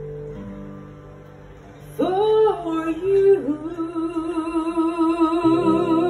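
A guitar chord rings and fades, then about two seconds in a woman starts singing over the guitar, holding long notes with a wide vibrato.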